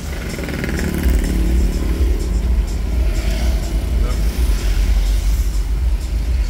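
Road traffic heard from inside a car waiting in a queue: a steady low rumble, with a motorcycle engine running up in the first couple of seconds as bikes pass alongside.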